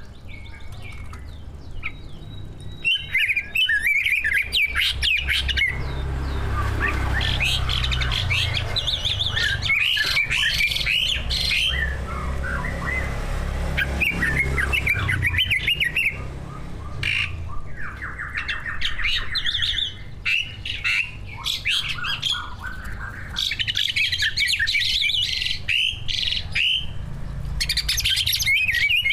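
Cucak ijo (greater green leafbird) singing in its loud, varied song of fast sliding chirps and whistles in bursts, with a rapid rattling trill about two-thirds of the way in. A steady low rumble runs underneath.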